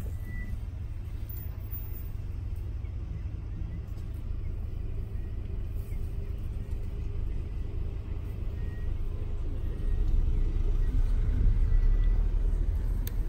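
Low, steady engine rumble of an idling vehicle, growing louder about ten seconds in.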